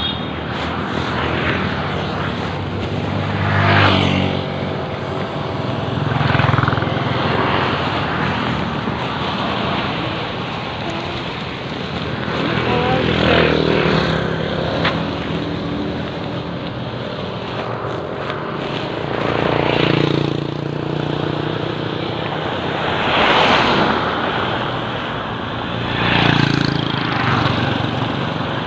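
Road traffic, mostly motorcycles, passing one after another. The engine sound swells up and fades away about six times over a steady hum.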